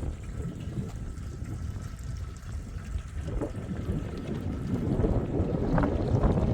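Wind buffeting the microphone, a gusting low rumble, with a few faint knocks and scrapes near the end.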